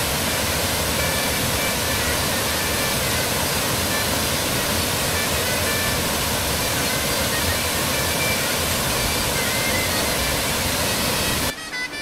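Steady rush of the Canikdere waterfall pouring into its pool, an even, unbroken noise that cuts off suddenly near the end.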